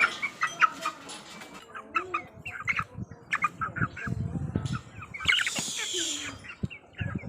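Aseel chickens calling in many short chirps and clucks, with a burst of rustling about five seconds in.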